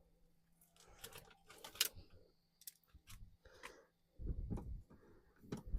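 Faint scattered clicks and rattles of parts and fasteners being handled at a car door, with two dull thumps in the second half.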